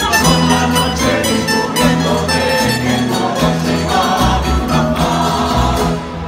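Castilian folk music played live by a band of plucked strings, guitars with bandurria and laúd, over a steady bass line: an instrumental stretch of the tune.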